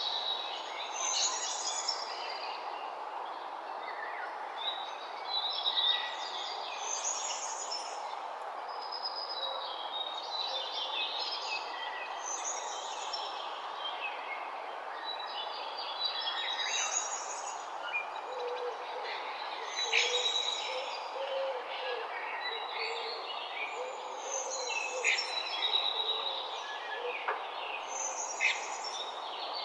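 Morning chorus of several songbirds singing and chirping over a steady outdoor background hiss, with a low bird call repeated several times in the middle stretch.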